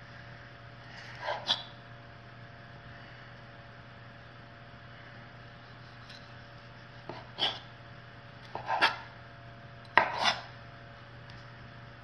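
Chef's knife cutting soft ripe tomatoes on a wooden cutting board: a handful of short slicing and tapping strokes on the board, most of them in the second half, over a faint steady hum.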